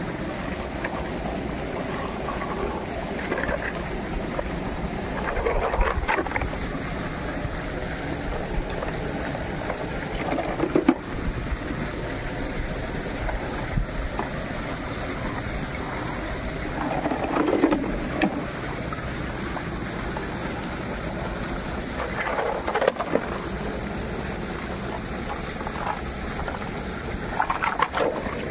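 Shallow stream water running steadily, with wind rumbling on the microphone. Several times, a plastic toy truck splashes and tumbles in the water, the last near the end.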